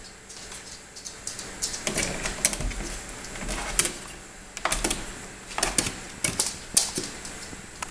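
A Yorkshire terrier's claws and paws clicking and tapping on hard stairs as it scrambles over the steps. The taps are quick and irregular, coming in clusters, and are loudest in the second half.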